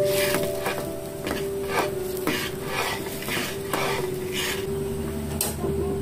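Metal spatula stirring and scraping around a wok of simmering sauce, in repeated short strokes about every half second.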